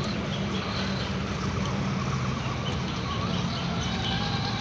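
A steady low mechanical hum, like a motor running.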